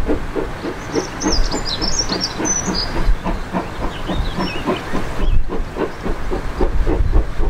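A steam locomotive working hard, its exhaust beating out a rapid, even chuff of about five beats a second over a low rumble.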